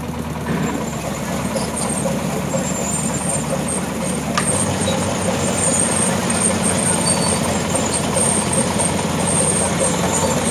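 An engine running steadily, with a single sharp click about four seconds in.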